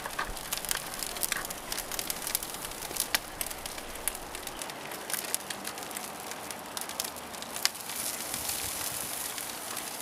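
Charcoal fire in a Weber kettle grill crackling and sizzling under racks of ribs while they are basted with thinned barbecue sauce: a steady hiss with scattered sharp crackles.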